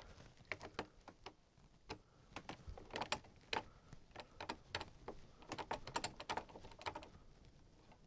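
An aftermarket keypad RV door lock and latch being worked by hand, giving a run of irregular light clicks and rattles.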